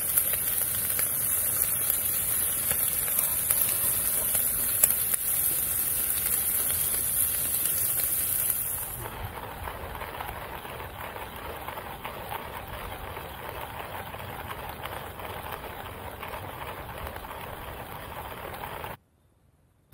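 Steady outdoor background hiss with no clear single source. It is high-pitched for the first nine seconds, then changes abruptly to a softer, lower hiss, and cuts off suddenly about a second before the end.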